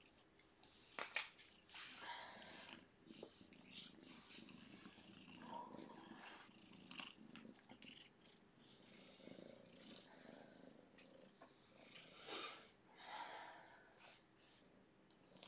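Faint congested snuffling and breathing of kittens whose noses are stuffed up with an upper respiratory infection, in soft breathy bursts, the loudest a few times near the start and twice near the end, with a few light clicks.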